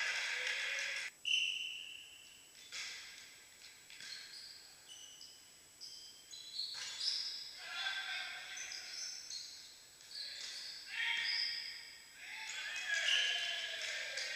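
Indoor volleyball play: sharp hits of the ball, the loudest about a second in, with players' voices calling between them in a large echoing sports hall.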